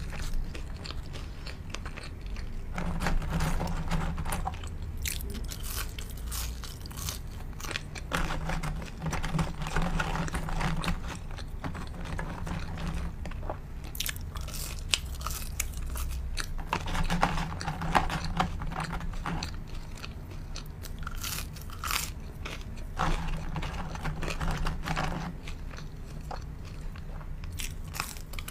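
Close-miked eating sounds of a person biting and chewing shawarma wrap and french fries, the crunching and mouth clicks coming in spells every few seconds.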